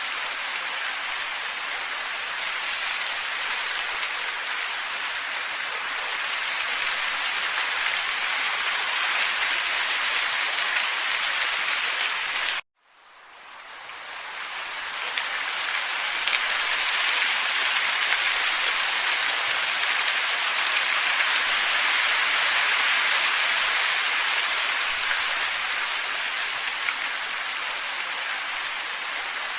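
Steady hiss of wind in a snowy forest. It cuts out abruptly about 13 seconds in, then fades back up over the next few seconds.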